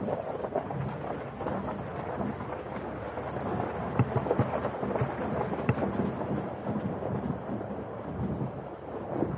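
Jeep Wrangler Rubicon's tyres rolling over a loose gravel track: a steady crunching rush with scattered sharp clicks of stones, a few louder ones midway.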